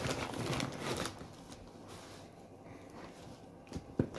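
Parcel packaging rustling and crinkling as it is handled for about a second, then a quiet stretch with a short sharp click near the end.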